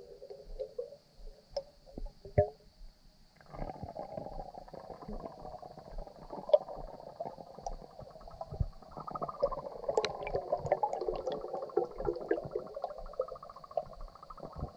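Air bubbles gurgling as they stream up through swimming-pool water, heard underwater: quiet with a few clicks at first, then steady bubbling from about three and a half seconds in that grows denser about nine seconds in. A faint steady high hiss lies underneath.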